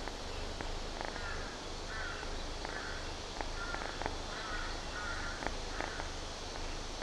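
Kitten purring, a low rumble that swells and fades in a steady rhythm. Birds call in the background, with short calls repeating every second or so.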